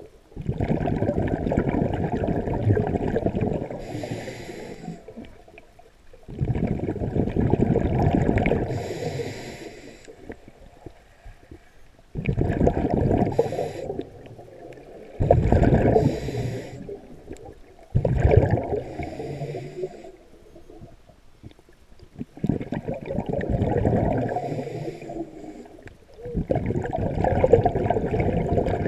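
A scuba diver breathing through a regulator underwater: about seven breaths, each a rush of bubbling exhaled air lasting a couple of seconds, followed by a short hissing inhale.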